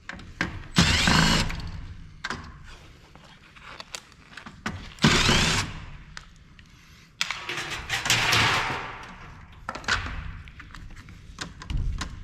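Handheld power driver spinning in three short bursts as screws are backed out of a monitor's casing, the last burst the longest, with small clicks and knocks of loosened metal parts and screws in between.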